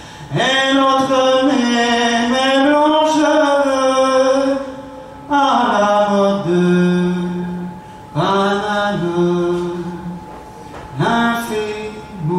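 A man singing solo and unaccompanied in long held notes, in four phrases that each start after a short breath.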